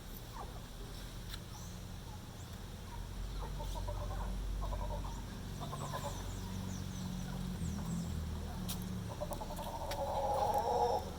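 Howler monkeys calling in several short bouts, the loudest and longest near the end, over a steady low drone.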